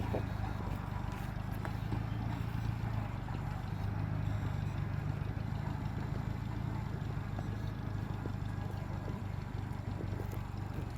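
Farm tractor engine running at a steady, even speed.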